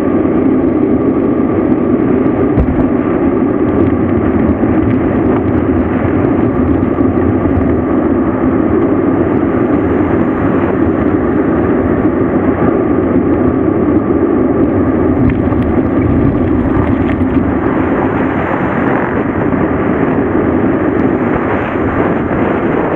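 Steady rushing roar of wind on the microphone and tyre rumble from a mountain bike rolling downhill at speed, turning brighter and hissier about two-thirds of the way through.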